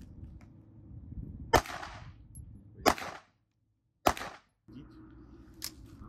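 Three gunshots a little over a second apart, each a sharp crack with a short echoing tail.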